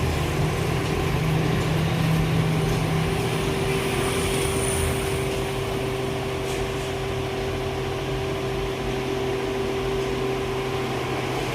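A steady engine hum, holding an even pitch, over background street noise.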